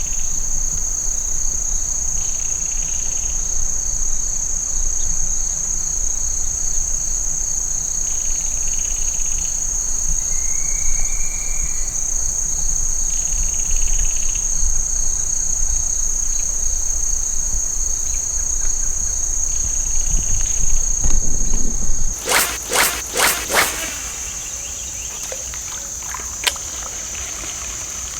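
Steady high-pitched chorus of crickets or other insects, with a low rumble underneath. About three-quarters of the way in comes a quick run of about five sharp splashing or knocking sounds.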